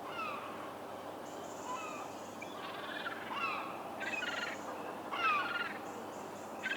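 Herring gulls calling: a run of short calls that fall in pitch, one every second or so, some overlapping, over a steady background hiss.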